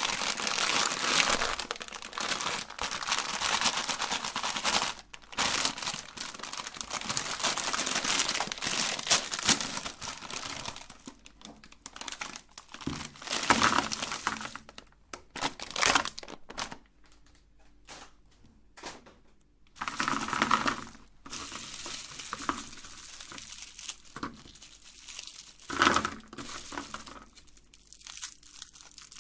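Plastic candy wrappers crinkling and tearing as colourful candies are unwrapped and handled. Dense, continuous crackling for the first ten seconds or so, then shorter bursts with quiet gaps between.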